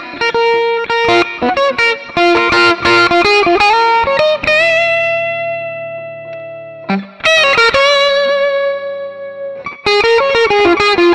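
Electric guitar played through a Mooer GE200 multi-effects unit on a clean funk preset with its US TWN 212 amp model (a Fender Twin-style 2x12 with 6L6 tubes): quick picked notes, then a chord left to ring and fade for a couple of seconds, another chord, and fast picked notes again near the end.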